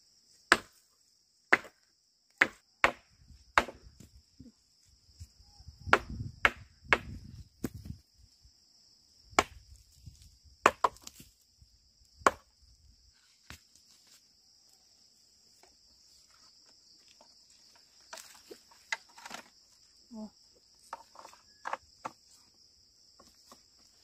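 A rock striking wood as a hand hammer, knocking the parts of a wooden ox plough together: sharp, irregular knocks, a dozen or so over the first half, then a few fainter ones. Crickets chirr steadily throughout.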